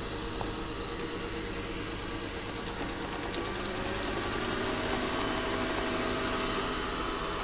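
Electric stand mixer running steadily, its beater whipping a creamed margarine-and-sugar batter as an egg is beaten in. The motor hum grows a little louder about three and a half seconds in.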